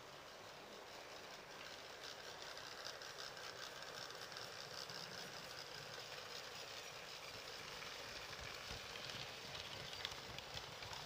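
Model railway locomotive and coaches running on the track: a steady whirring hiss of the motor and wheels with light clicking over the rail joints and points, getting louder about two seconds in as the train comes close and passes.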